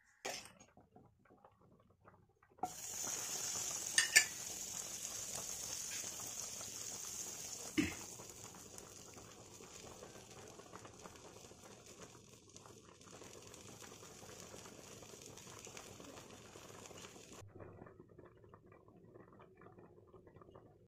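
Butter sizzling in a hot non-stick pan: a steady hiss that starts suddenly a few seconds in, is loudest for the first few seconds, then eases and cuts off suddenly near the end. Two sharp clacks come close together about four seconds in, and another about eight seconds in.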